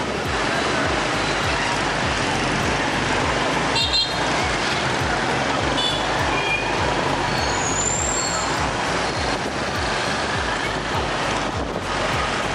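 Dense motorbike traffic heard from a moving motorbike: a steady rush of engines and road noise, with short horn toots about four and six seconds in.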